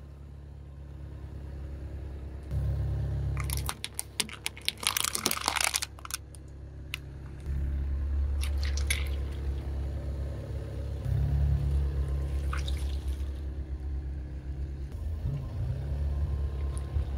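A car tyre rolling over soft, wet things on concrete, jelly-filled balloons and Orbeez water beads, over the low rumble of the car. Quick clusters of crackling, popping clicks and squishing come loudest about three to six seconds in, with smaller ones later.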